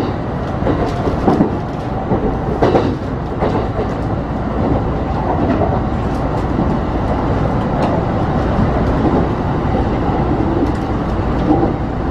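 Kintetsu Kyoto Line electric train running at speed, heard from inside the front cab: a steady rumble of wheels on rail, with a few sharp clacks in the first four seconds.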